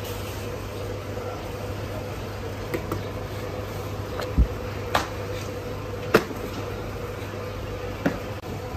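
Steady low electric motor hum, with a few scattered sharp clicks and one dull thump about four seconds in, from handling a large thin sheet of roti dough on a worktable.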